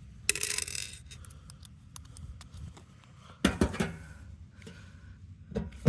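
Screwdriver clicking and scraping against a stuck screw: scattered small clicks with two short rasping scrapes, one about a third of a second in and one about three and a half seconds in.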